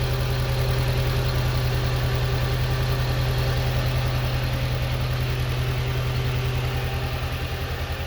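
The 1.8-litre turbocharged four-cylinder engine of a 2003 VW Passat idles steadily just after a restart. Its PCV hoses and vacuum check valve are freshly replaced, and it is running fairly smooth.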